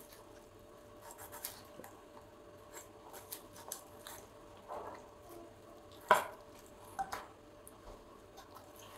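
Kitchen knife trimming fat from a raw skinned chicken on a bamboo cutting board: faint scraping of the blade through the meat, with light taps on the board and one sharper knock about six seconds in.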